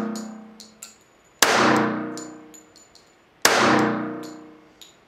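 Two pistol shots from a Springfield Armory Garrison 1911 with a 4.25-inch barrel, about two seconds apart. Each crack rings on in a long echo that fades off the walls of an indoor range.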